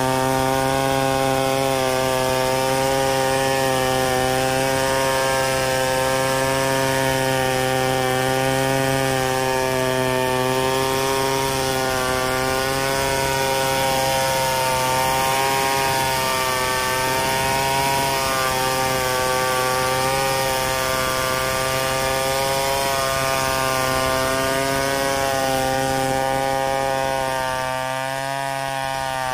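Stihl 070 two-stroke chainsaw running hard under load, ripping lengthwise along a log. The engine note stays steady with a slight waver, then eases a little near the end.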